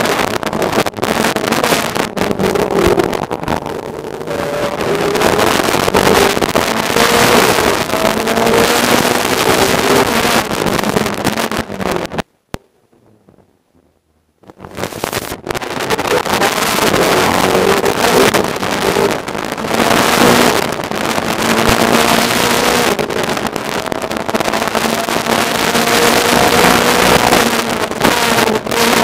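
In-car sound of a Lada WTCC touring car's turbocharged four-cylinder racing engine under hard throttle, climbing in pitch through each gear and dropping back at the upshifts. About twelve seconds in, the sound cuts out suddenly for about two seconds, then returns.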